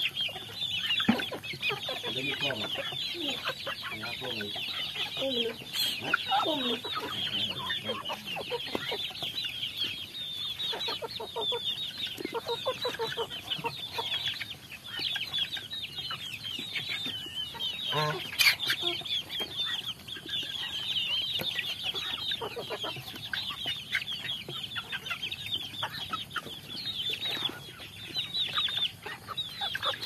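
A flock of young chickens feeding, peeping and clucking without a break: many short high chirps over lower clucks. One sharper, louder sound comes about eighteen seconds in.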